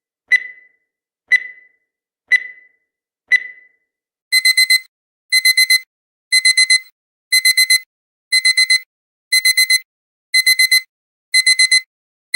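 Countdown timer sound effect: a short tick once a second for four seconds, then, as the timer reaches zero, a digital alarm clock beeping in quick groups of four high beeps, one group each second.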